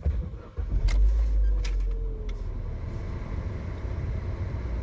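Vauxhall Meriva petrol/diesel engine being started: a short crank, the engine catching about a second in with a brief flare of revs, then settling to a steady idle.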